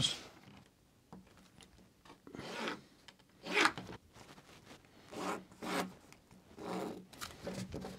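A pencil drawn in several short strokes along a plastic set square across upholstery fabric, marking seam-allowance lines.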